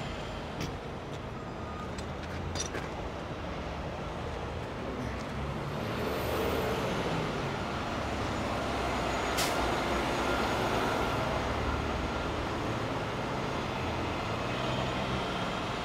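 Freeway traffic passing, swelling in the middle, over the steady low hum of idling heavy diesel tow trucks. A single sharp click comes about nine seconds in.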